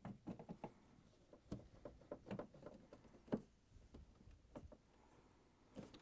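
Faint, irregular clicking and ticking of a Phillips screwdriver turning screws into the dryer door's plastic panels, with one sharper tick a little past three seconds in.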